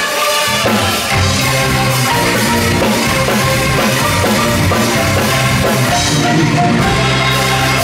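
Music with a drum beat and pitched percussion playing a fast-moving melody.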